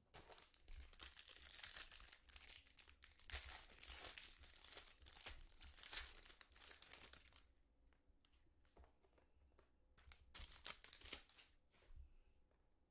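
Trading-card pack wrapper being torn and crinkled by hand, dense crackling for about seven seconds, then only a few short, quieter rustles.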